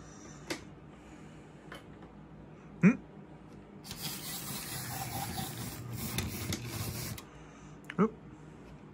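Small model steam locomotive running roughly on the track: a few sharp clicks and knocks, the loudest near three seconds, then about three seconds of rough, grinding mechanical running from its motor and wheels. The owner takes the bad running for a fault in the wheels or a too-rigid frame.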